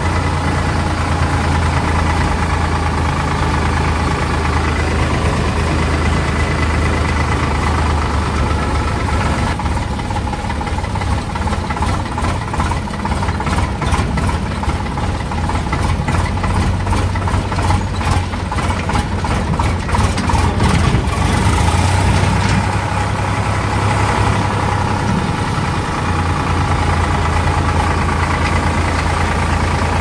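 Sonalika DI 47 RX tractor's diesel engine running steadily at low road speed, heard from the driver's seat. Through the middle stretch it is overlaid by a rapid, irregular rattling that stops a little after twenty seconds.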